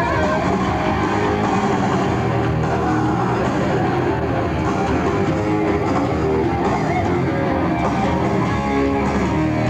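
A heavy metal band playing live and loud, with electric guitar over bass guitar and a drum kit, captured by an audience recording in an arena.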